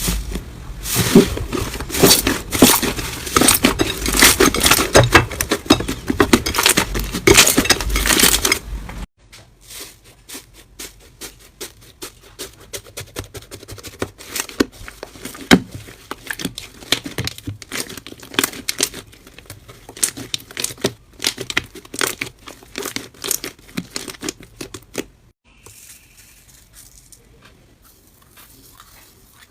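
Slime being squeezed and worked by hand: dense crackling and popping for about the first nine seconds. It then cuts to softer, sparser clicks and pops, which become quieter still near the end.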